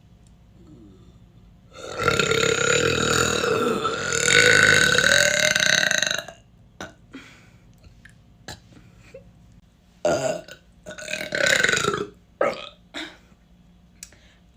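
A person burping: one long, loud burp lasting about four seconds, then after a pause two shorter burps close together. A few small clicks come between them.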